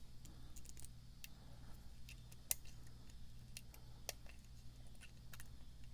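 Faint, irregular ticks and clicks of a lock pick working the pin stacks of a pin-tumbler lock under light tension, one click a little sharper about two and a half seconds in, over a steady low hum.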